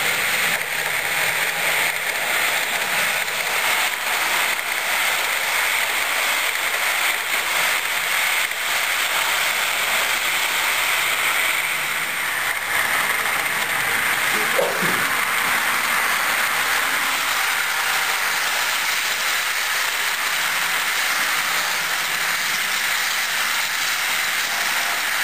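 Model train running on the layout's track: a steady rolling hiss of small wheels on rails and motor. About halfway there is a brief sliding sound.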